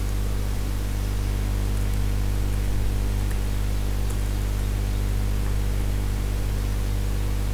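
Steady low electrical hum with hiss, picked up by the recording microphone. A few faint keyboard clicks come between about two and four seconds in, as a class name is typed.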